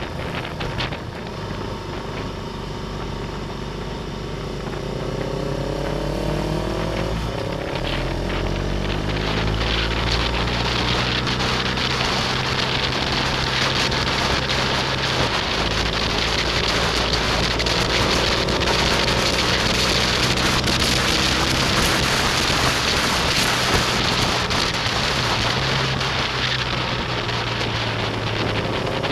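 Motorcycle engine under way, its pitch rising several times as it accelerates. Heavy wind rush on the microphone grows louder after the first few seconds.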